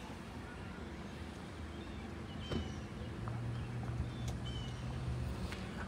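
Faint outdoor ambience: two short high chirps about two seconds apart, with a low steady hum through the second half.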